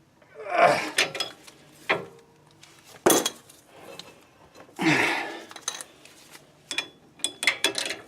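Hand wrench and steel parts clinking and clanking while bolts are tightened by hand on a classic Ford 8-inch rear axle. There is a sharp clank about three seconds in and a quick run of clinks near the end.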